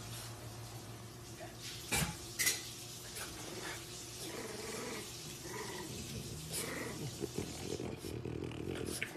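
French bulldogs, an adult and a puppy, making small playful growls and grunts as they tussle. There are two sharp knocks about two seconds in, over a steady low hum.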